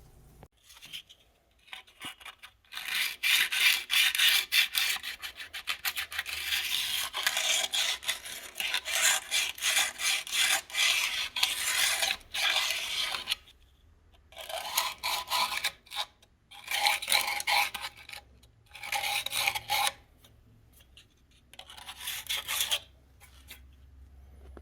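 Hand scraping and scrubbing of mineral deposits and oil out of the coolant passages of a Honda B16A engine block, in rapid back-and-forth strokes. It goes on for about ten seconds, then comes in four shorter bouts.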